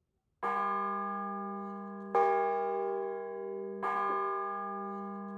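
A bell struck three times, a little under two seconds apart. Each stroke sets up a rich ringing tone that fades slowly, and is cut off by the next stroke. These bell strokes open a song.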